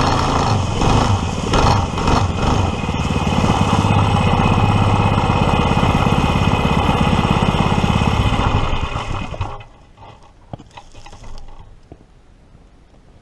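Predator 212 single-cylinder four-stroke engine running hard under load as the Power Wheels kart is driven at speed. About nine seconds in the engine sound drops off quickly, leaving only faint clicks.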